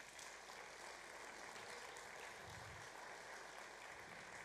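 Congregation applauding: a steady, faint patter of clapping.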